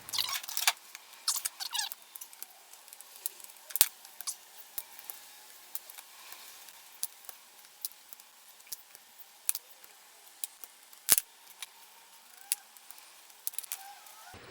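Small metal clicks and ticks from a screwdriver and screws being handled as the float bowl screws come out of the Honda CB750 Nighthawk's carburetors. A quick cluster of clicks comes in the first two seconds, then scattered single ticks, with two sharper ones at about four and eleven seconds.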